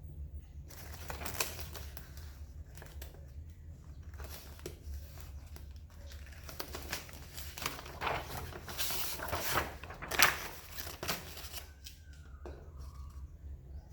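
Rustling and irregular clicks of things being handled at close range, busiest and loudest about two-thirds of the way through, with one sharp click standing out.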